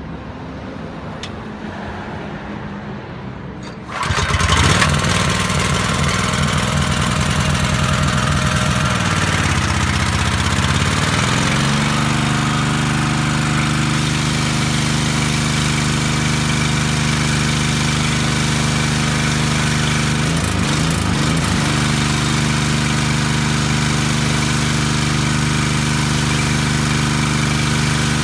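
Shindaiwa JE2015 engine-driven high-pressure washer starting about four seconds in, then running; its engine speed shifts and settles over a few seconds, then holds steady.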